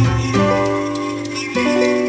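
Background music of plucked-string notes over a held low note, with new notes coming in about a third of a second in and again near the end.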